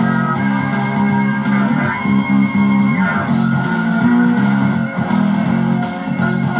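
Guitar-led instrumental music playing back from a cassette tape through the player's speaker.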